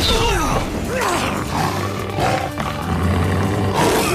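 Dramatic cartoon action music with a growling, roaring voice that falls in pitch several times, from a blue-furred, beast-like cartoon mutant fighting.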